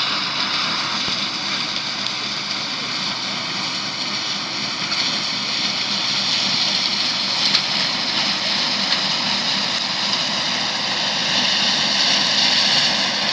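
New Holland TX34 combine harvester running steadily, a dense, even machine noise with faint whining tones over it.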